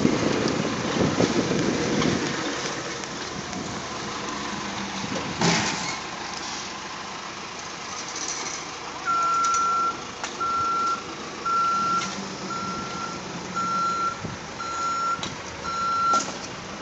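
A vehicle's backup alarm beeping in a steady series, seven single-pitched beeps about one a second, over steady wind and outdoor noise, with a short rumble near the start.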